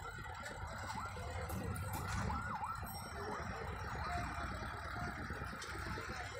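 Street background noise: a steady low traffic rumble with many short rising-and-falling whistle-like tones over it.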